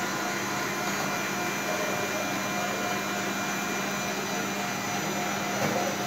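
Steady whirring drone of kitchen machinery, with a low hum and a few faint steady whining tones over it.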